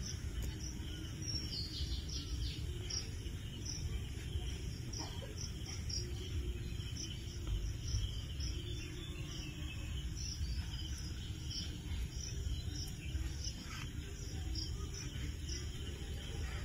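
Cricket chirping steadily, short high chirps about two a second, over a low steady rumble.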